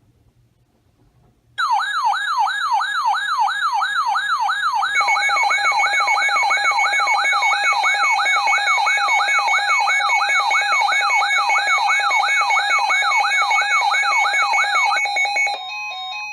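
Weather radio alert siren going off about a second and a half in: an electronic tone sweeping up and down about twice a second, signalling an incoming emergency alert (here a high wind warning). A steady pulsing tone joins it a few seconds later, and near the end the sweeping stops, leaving a steadier tone.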